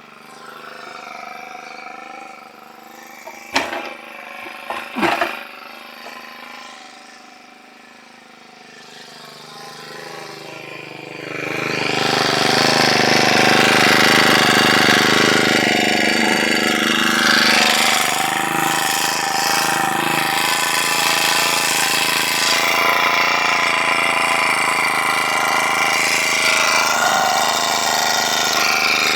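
Two sharp knocks, then an engine that gets much louder about eleven seconds in and keeps running steadily.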